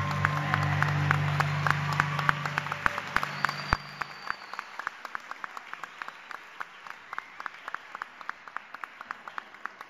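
Audience applause with individual hand claps, thinning out and fading toward the end. Under the first few seconds the final electronic keyboard chord holds and dies away about four seconds in.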